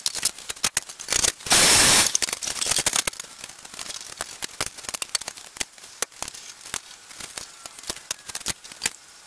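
Sped-up clatter of a DeWalt DW733 thickness planer being put back together: a dense run of quick clicks, knocks and rattles of metal parts and tools, with a loud burst of hiss about one and a half seconds in.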